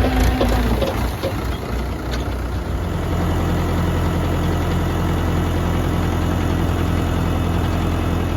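Heavy diesel engine running, settling into a steady idle about three seconds in.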